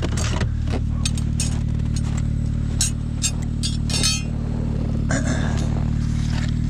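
Snowmobile engine idling steadily, with scattered sharp clicks and clinks over it.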